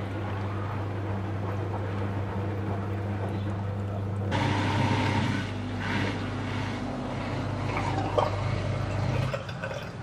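Portable dishwasher running: a steady pump hum with water sloshing inside during the wash. About four seconds in the sound changes abruptly as the drain cycle begins, with the drain pump running and water gurgling. The low hum stops near the end.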